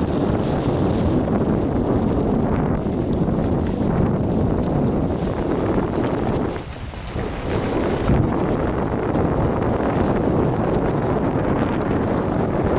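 Wind rushing over the microphone while riding a mountain bike: a steady, loud buffeting rush that dips briefly about seven seconds in.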